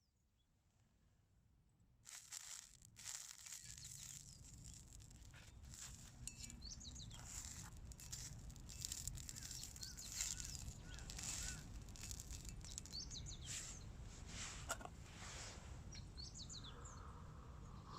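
Small birds chirping with short, quick calls, faint and fading in over the first two seconds, over a low steady outdoor rumble with scattered brief rustles.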